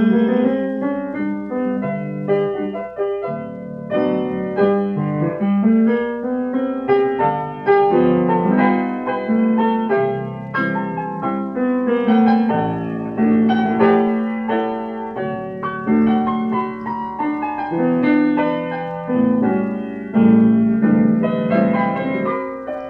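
Solo piano playing an instrumental break in a song, chords and melody notes throughout, with no voice. It is played back from an old instantaneous lacquer disc recording.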